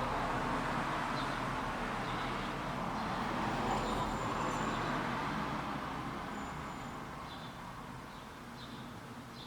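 Noise of a passing vehicle or road traffic that swells and then fades away over the last few seconds, with faint bird chirps.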